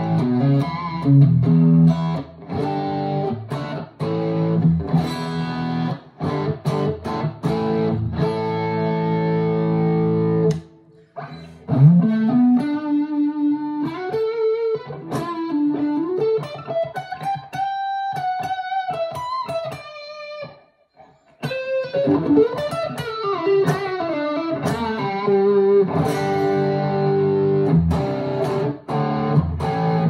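2023 PRS Special Semi-Hollow electric guitar played through an amplifier: picked chords for about the first ten seconds, then a single-note lead line with string bends and vibrato. After a brief pause about twenty seconds in, chords and lead phrases return.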